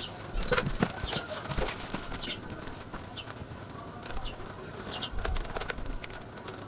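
A small bird chirping repeatedly, short high chirps about once or twice a second, over scattered knocks and rustling from handling.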